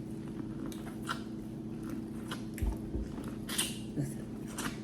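Close-up eating sounds: chewing with scattered wet clicks and lip smacks, and two low thumps about two and a half and three seconds in.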